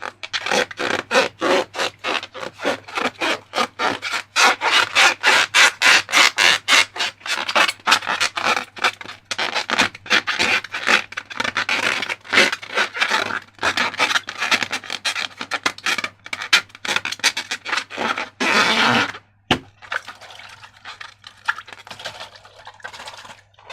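Rapid rubbing and scraping strokes, a few a second, from balloons and slime being handled and worked by hand, with one longer scrape near the end and quieter handling after it.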